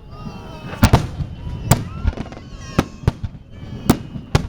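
Aerial fireworks shells bursting in a finale display: about six sharp bangs at irregular intervals, some a fraction of a second apart.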